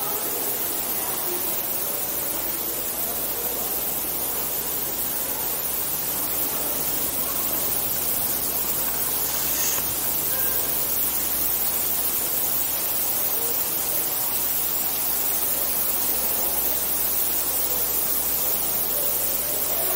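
Steady, unbroken rushing noise, strongest in the high range, like falling or running water or an air system.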